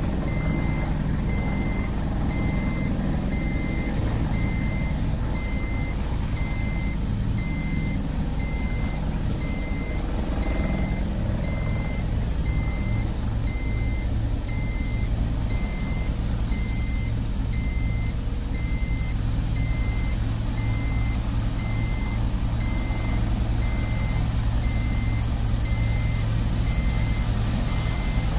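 Bell military helicopters' turbine engines and rotors running steadily, a low rotor drone under a high, thin turbine whine. An electronic beep repeats evenly, a little faster than once a second, throughout.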